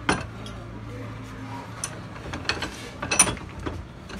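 Metal clanks and knocks from a car alternator being handled and set on a workbench: a sharp knock at the start and a cluster of knocks about two and a half to three and a half seconds in.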